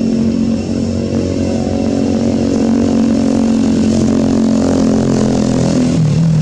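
An engine running steadily with a held pitch that steps down near the end.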